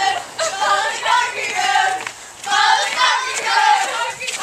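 A group of voices singing together in phrases, with short breaks for breath.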